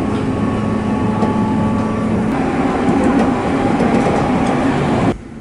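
Electric local train running on the JR Shin'etsu Main Line, heard from inside the car behind the cab: steady running noise with a hum and a few steady whining tones, one of which drops to a lower pitch about two seconds in. The sound cuts off suddenly near the end.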